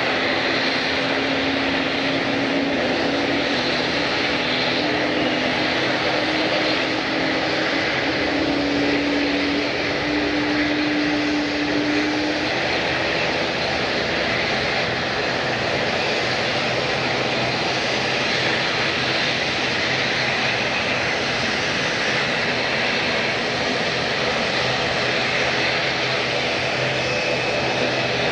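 Airliner engines running with a steady, loud rushing noise. A droning tone rises slightly in pitch over the first twelve seconds or so, then drops away.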